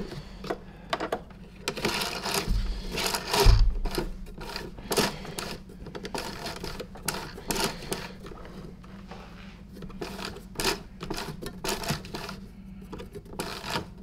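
Irregular plastic clicks and knocks, with two dull thumps about three seconds in, as the cord rewind reel of a SEBO C3.1 canister vacuum is worked by hand while the cord is refusing to retract.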